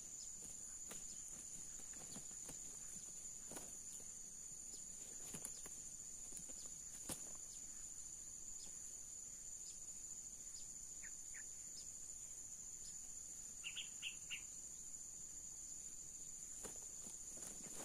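Steady high-pitched drone of insects, with scattered faint rustles and clicks and a quick series of three short chirps about fourteen seconds in.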